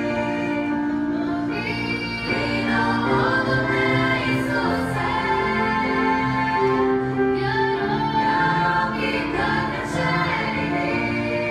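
Choir singing with piano accompaniment, in long held chords that grow slightly louder about two seconds in.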